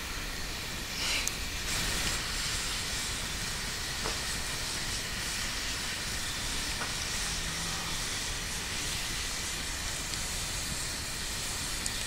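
Campfire burning with a steady hiss and a few faint pops.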